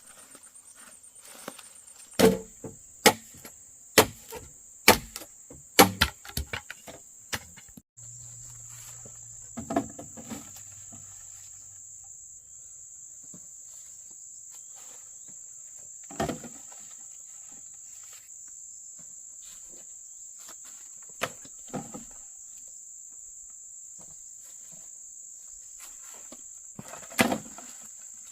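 Insects, crickets by their sound, chirring steadily and high-pitched, with loud sharp knocks: a run of about six, roughly one a second, a couple of seconds in, then single knocks every few seconds.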